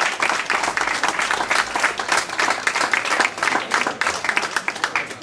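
A group of people applauding, a steady run of many hand claps that fades right at the end.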